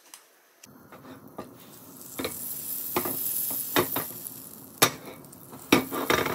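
Butter sizzling and foaming as it melts in a hot cast-iron skillet. The sizzle starts under a second in and grows louder, with sharp clicks about once a second.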